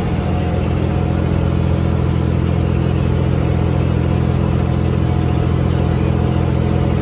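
A wooden riverboat's inboard engine running at a steady cruising speed, an even drone heard from the deck.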